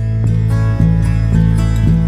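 Background music led by a strummed acoustic guitar, with a steady rhythm of strokes over held low notes.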